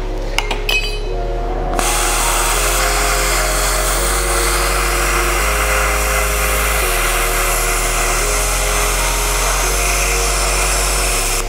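A plasma cutter hissing steadily as it cuts through a steel bracket on an axle tube, starting about two seconds in after a few hammer blows on the metal. Background music plays underneath.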